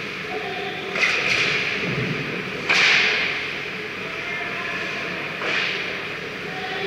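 Ice hockey play in a large, echoing arena: four sudden noisy hits or scrapes, about one, one and a half, three and five and a half seconds in. The one near three seconds is the loudest, and each dies away slowly in the echo.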